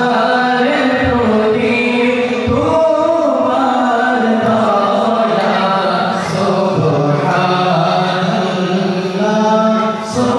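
A man reciting a naat, Islamic devotional verse, in a sung, chant-like melody with long held notes. It is amplified through a microphone and has no instrumental accompaniment.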